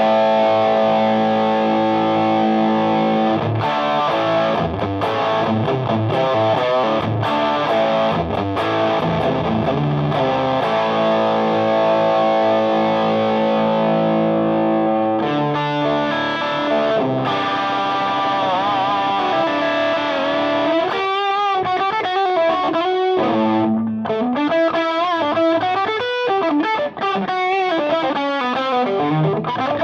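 Overdriven electric guitar, a PRS S2 Custom 24 through a Ramble FX Marvel Drive pedal into a Marshall amp's clean channel. Distorted chords ring out for about the first half, then single-note lead lines with string bends and vibrato.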